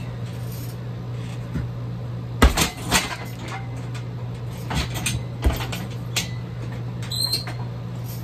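Kicks and foot stomps thudding during heavy-bag training: about seven sharp impacts, the loudest about two and a half seconds in, over a steady low hum.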